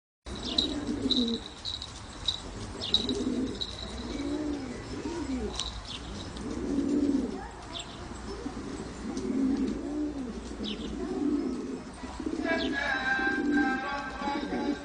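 Keşpir pigeons cooing, a steady run of low rising-and-falling coos about once a second, with a few short high chirps in the first seconds. Music with a drum comes in near the end.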